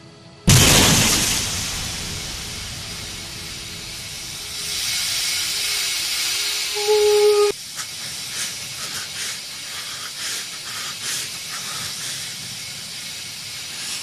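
Car-crash sound effects in a road-safety film: a loud rush of hissing noise that starts suddenly about half a second in, fades and swells again, with a short pitched blare that cuts off abruptly about halfway through. A steadier hiss with scattered crackles follows.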